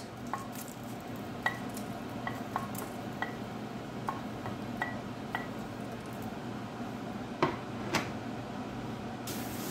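Light clicks and taps as cut dried red chilies drop from a wooden spatula and ceramic plate into a dry nonstick frying pan, every half second to a second, with two louder knocks near the end.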